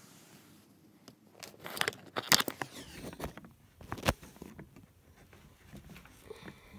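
Sped-up handling noises: rustling and a cluster of sharp clicks about two seconds in, then a single sharp knock about four seconds in, as craft things and the camera are moved about on a cardboard box.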